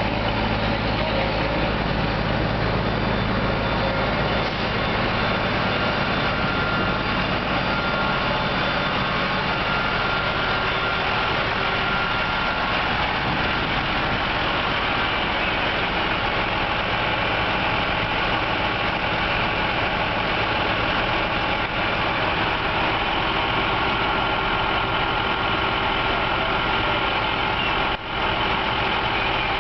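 Fire truck's diesel engine running steadily, a constant mechanical drone that stays unchanged throughout.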